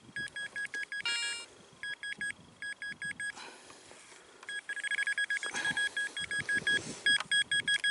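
Metal detector giving rapid, repeated high-pitched beeps in bursts as the coil is swept back and forth over a buried target, with a brief different chirp about a second in. The target reads 83–84 and sounds less clean than a coin, though the detectorist thinks it could still be one.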